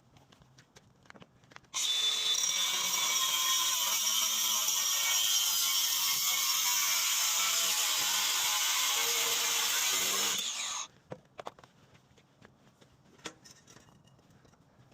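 A power tool runs steadily for about nine seconds, starting about two seconds in and cutting off suddenly, a harsh hiss with a high whine over it.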